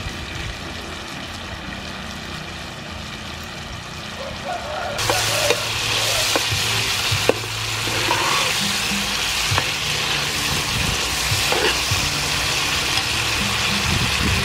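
Clams and sweet pepper strips frying in a pan: a quieter sizzle at first, then a much louder, brighter sizzle from about five seconds in, with scattered clicks of the pan being stirred.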